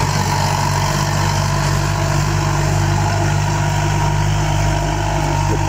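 Farm tractor's diesel engine running steadily under load while pulling a disc plough through the soil.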